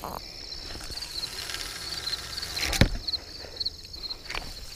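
Insects chirping in a steady, high, pulsing trill, with a single sharp knock a little under three seconds in.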